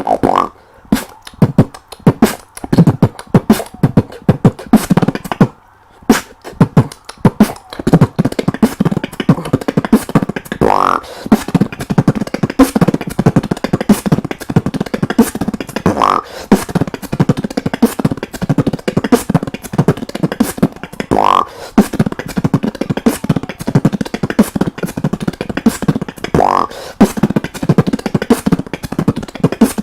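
Beatboxing: a beatboxer's vocal percussion laying down a fast, steady beat of kick, snare and hi-hat sounds, with a brief break about six seconds in. A short rising vocal sweep comes back about every five seconds.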